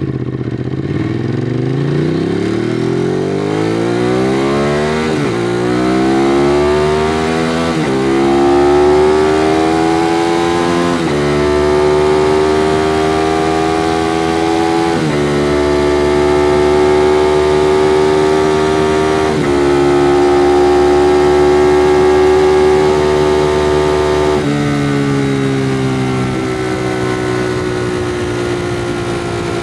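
2016 Ducati Monster 821's 821 cc L-twin engine through its stock exhaust, accelerating hard through the gears: the pitch climbs, then drops at each of about five upshifts in the first twenty seconds. It then holds a steady cruise and eases off in pitch near the end.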